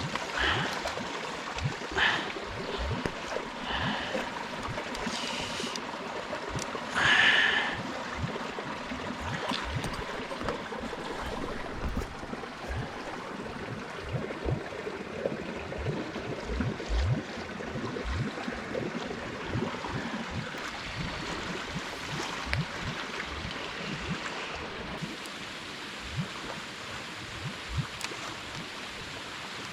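Steady rush of flowing water, with a few brief sharper sounds over it, the loudest about seven seconds in.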